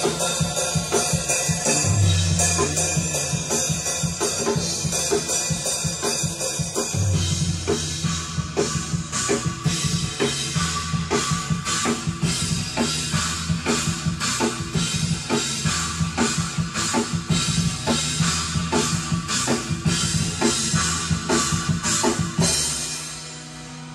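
Heavy metal drum track with fast, dense bass drum, snare and cymbal hits over low sustained guitar and bass notes, playing back the freshly recorded drums, then cutting off near the end.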